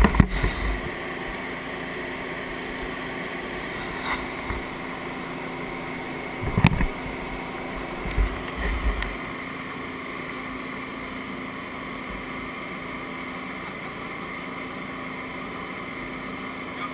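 Handling noise from a body-worn camera: turnout-coat fabric rubbing and bumping against the microphone, loudest at the start, about 6.5 s in and again around 8 to 9 s in. Under it an engine runs steadily with a constant hum.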